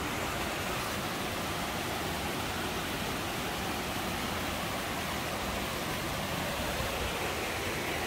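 Steady rush of water from a rocky forest stream and waterfall cascading over boulders.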